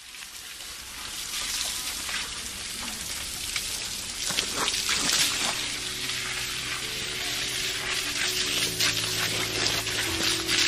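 A steady crackling hiss of rain falling on wet ground and foliage, fading in over the first two seconds. From about five seconds in, soft sustained music notes play under it.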